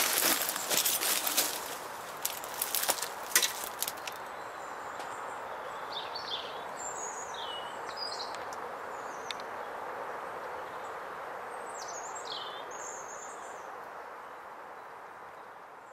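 Crackling and rustling in dry brambles and twigs for the first few seconds, then a steady outdoor hiss with a handful of short, falling bird chirps. The sound fades out near the end.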